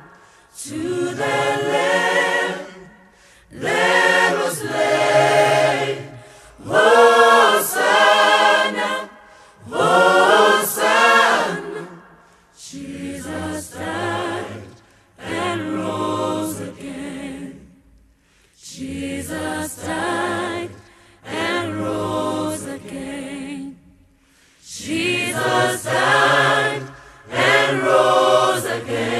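Choir singing a cappella, in phrases of a few seconds with short pauses between them.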